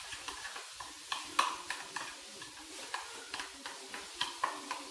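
A spoon stirring a thick mayonnaise sauce in a small bowl: wet scraping with frequent, irregular light clicks of the spoon against the bowl.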